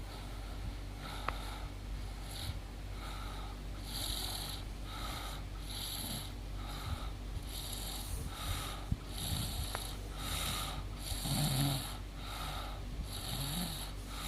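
A woman snoring as she dozes, with soft raspy breath noises about once a second and a deeper snore about eleven seconds in.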